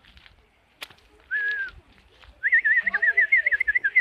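A sharp click, then a high whistle: a short steady note followed by a longer warbling trill that wavers quickly up and down.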